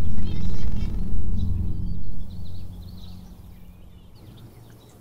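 A loud low rumble that fades away over about three seconds, with birds chirping.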